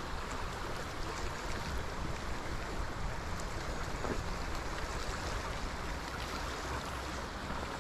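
River current running and rippling over gravel shallows: a steady rushing of water.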